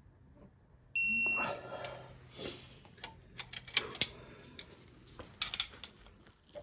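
A short, high electronic beep about a second in, followed by a string of sharp metallic clicks and clinks from hand tools and engine parts being handled.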